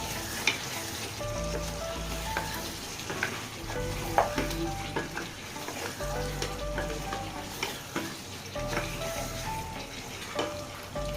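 Chicken and spice paste sizzling in a pot as it is stirred and turned with a spatula, which clicks and scrapes against the pot now and then. The meat is cooking down in the spices and its own released juices.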